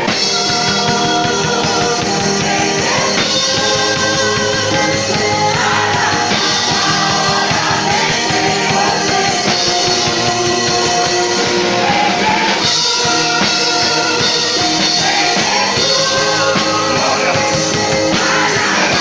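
Rock music with singing and guitar, loud and continuous.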